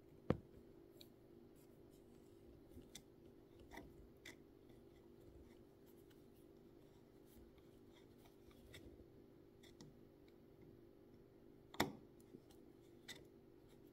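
Scattered small clicks and taps of metal sewing-machine parts and a screwdriver being handled during reassembly, with a sharp click just after the start and another near the end, over a faint low steady hum.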